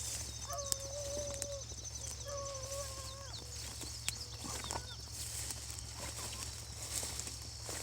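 Hunting hounds baying in the distance as they run a track: two long, drawn-out bawls in the first few seconds, then a few shorter, fainter barks.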